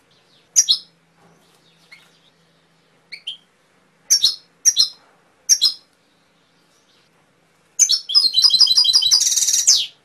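Domestic canary singing: five short, separate chirps, then near the end a fast run of repeated notes that closes in a rapid, buzzing trill.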